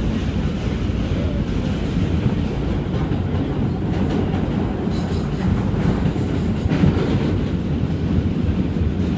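New York City subway Q train running on its rails, heard from inside the car: a steady low rumble of wheels and car body, with a few sharper clacks of the wheels over rail joints about five and seven seconds in.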